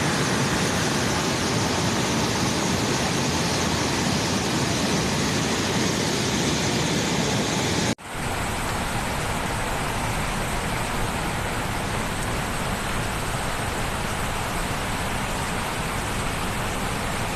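Steady rushing noise with no clear pattern or pitch, cutting out abruptly about eight seconds in and resuming slightly quieter.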